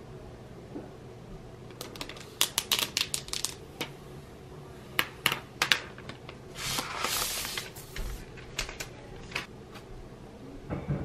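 Unpacking a new MacBook: sharp crackling clicks as its protective paper wrap is peeled off and the laptop is handled, in several quick clusters, with a longer rustle a little past the middle as the wrap comes away.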